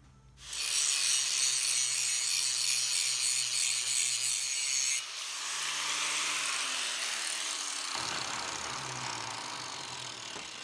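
Electric angle grinder grinding a 5160 steel knife blank clamped in a vise: a loud, harsh grind for about four and a half seconds. It stops abruptly when the disc comes off the steel, and the motor and disc then wind down slowly, fading out.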